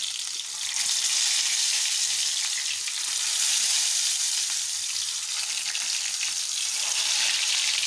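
Hot oil sizzling and crackling in a shallow frying pan as whole stuffed round gourds (tinda) are set into it to fry. A steady hiss that grows louder about a second in and then holds.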